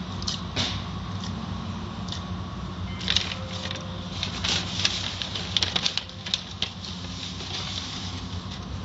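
Automatic car wash heard from inside the car: cloth strips and a rotating brush slap and rub against the body under spraying water and foam, over a steady machinery hum. A flurry of sharper slaps and taps comes in the middle.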